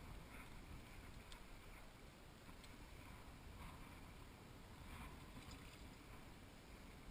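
Near silence: a faint, steady rush of wind and moving river water, with a few light ticks.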